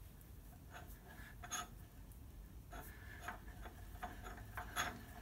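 Faint, irregular metal clicks and light scraping from a brake lathe's disk feed gearbox being screwed by hand onto its threaded shaft.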